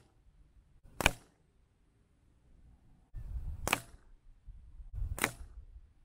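Three shots from a Beeman Commander air rifle, each a single sharp crack, about a second in, near the middle and near the end.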